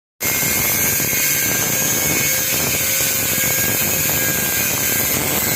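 A metal lathe running: steady, loud machine noise with a constant whine, cutting in suddenly just after the start.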